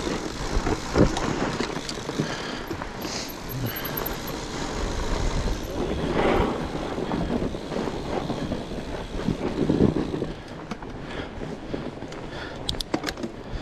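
A fat bike being ridden, with a steady rough rolling noise from the tyres and bike on the trail, two louder swells along the way, and a few sharp clicks near the end.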